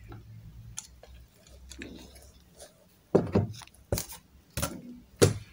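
Handling noise from unboxing metal CNC parts, a spindle motor and a Z-axis assembly, then four short knocks in the last two and a half seconds as the parts are moved and set down.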